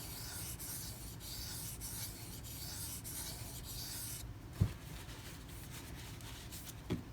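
A knife blade is stroked in a run of quick, hissing passes across a silicon carbide sharpening stone, stopping about four seconds in. A low knock follows about half a second later, and a softer one comes near the end.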